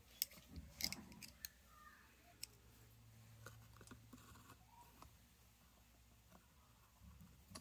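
Faint metallic clicks of needle-nose pliers and a small screw being started into a chainsaw cylinder. A quick cluster comes in the first second and a half, then a few scattered ticks.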